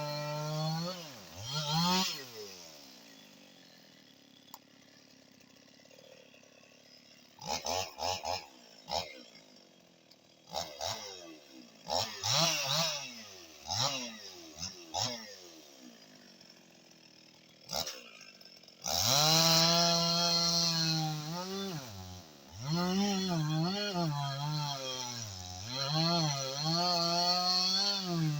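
Husqvarna 55 Rancher two-stroke chainsaw idling, revving once and dying away. It then fires in a series of short, sputtering bursts before catching about 19 seconds in and running at a fast, steady speed. Near the end it is blipped up and down several times, then settles to a steady idle.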